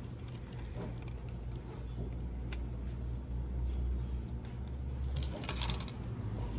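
Steady low hum of shop room tone with handling noise, a single light click about two and a half seconds in, and a short rustle a little after five seconds.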